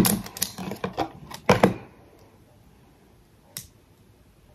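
Hard plastic clicking and clacking from a Bakugan Evolutions Sharktar toy being handled, as its stiff wing is pushed to snap it shut. There is a quick cluster of clicks and knocks over the first two seconds, then one more click a couple of seconds later.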